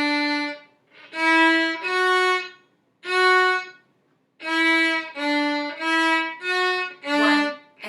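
Violin playing a slow beginner melody on D, E and F-sharp, one separate bowed note after another with short breaks between them and a longer pause near the middle.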